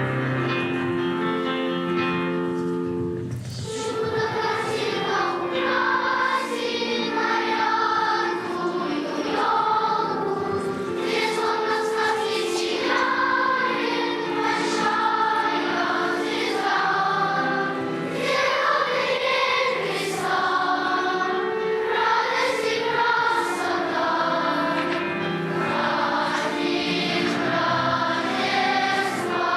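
Choir singing with instrumental accompaniment, coming in about three seconds in after a few held chords.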